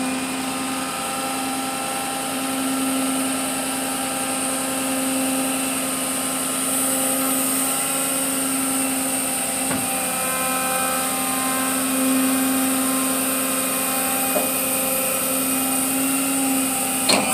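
Rollback tow truck running at idle, a steady mechanical hum that holds one pitch throughout.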